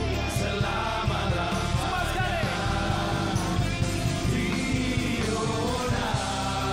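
Live rock band playing, with electric guitars over a steady beat and keyboards, and voices singing along.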